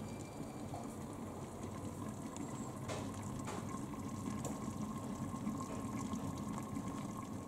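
Beef and vegetables stewing in their own juices in a covered stainless steel pot: a faint, steady simmering bubble with a few light ticks.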